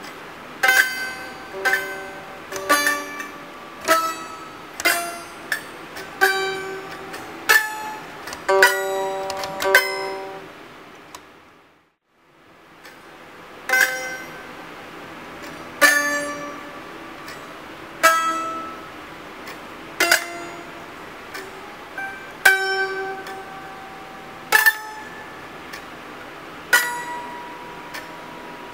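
Taishōgoto, the Japanese keyed zither, playing a slow melody of single plucked notes, each ringing and dying away, the pitches set by the keys pressed under the left hand. About twelve seconds in the sound fades to silence for a moment, then the notes resume more sparsely, about one every two seconds.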